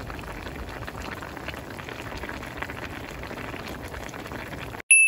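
A pot of sundubu-jjigae (spicy soft tofu stew) bubbling at a steady boil, a busy bubbling and popping of the broth. Near the end it cuts off suddenly and a single bright chime rings out briefly.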